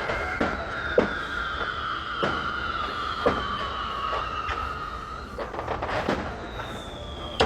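Fireworks display: whistling fireworks give high tones that slowly slide down in pitch and overlap, with sharp bangs about once a second or so over a steady low rumble.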